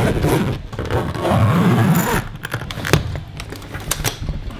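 Hard-shell suitcase being handled: scraping and rustling against its shell for about two seconds, then several sharp clicks and knocks as its telescoping handle is worked.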